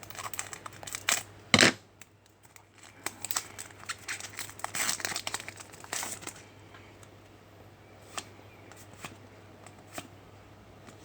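Trading-card pack wrapper crinkling and tearing as packs are opened and the cards handled, with a sharp crackle about a second and a half in. The handling thins out to a few light clicks and taps in the second half.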